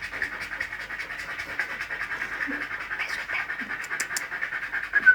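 An animal panting in quick, even breaths, about six a second, with a brief high squeak near the end.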